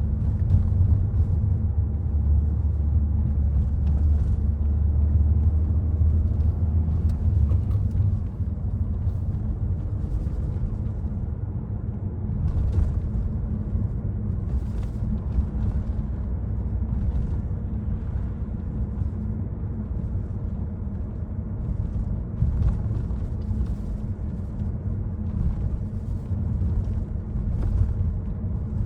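Citroen C5 Aircross driving in city traffic: a steady low engine and road rumble, heavier for the first eight seconds or so, with a few faint clicks.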